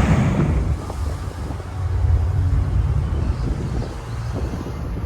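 Wind buffeting the microphone: a fluctuating low rumble, with a louder rushing gust that dies away in the first second.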